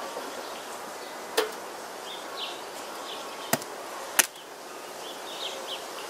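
Three sharp cracks and knocks, the last the loudest, as a metal hive tool pries the lid off a wooden beehive, with honey bees buzzing behind them.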